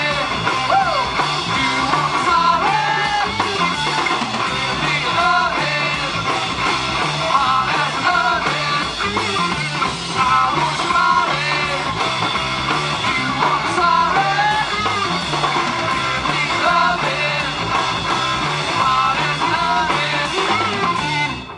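Live rock band playing a song: electric guitar, drum kit and bass, with a voice singing over them. The music cuts off at the very end.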